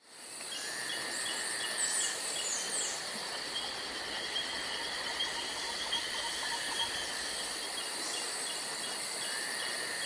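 Outdoor ambience of insects chirping in a quick, even repeating pattern, with a few short bird chirps; it fades in from silence at the start.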